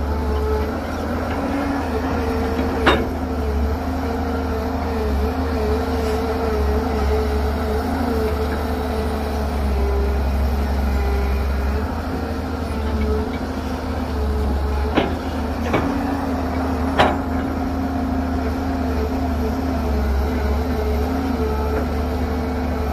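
Excavator's diesel engine running steadily, its note wavering a little, with four sharp knocks: one about three seconds in and three close together around fifteen to seventeen seconds in.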